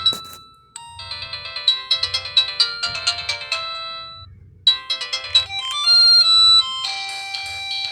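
Built-in ringtones and alert tones of a Samsung SCH-N480 mobile phone: a melody of bright electronic notes, then after a short gap a second tone about 4.5 seconds in, and a third starting near the end.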